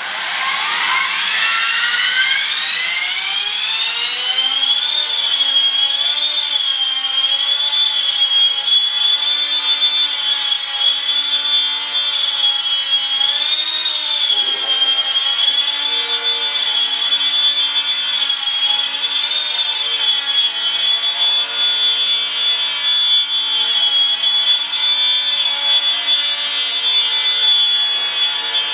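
Brushless electric motor and four-blade rotor of a small Nine Eagles Solo Pro 319 RC helicopter spooling up with a rising whine over the first few seconds. It then settles into a steady high whine that wavers slightly as the throttle changes in flight.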